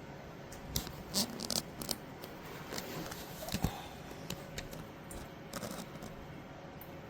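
A run of small clicks, taps and rustles from something being handled, over a faint steady hum.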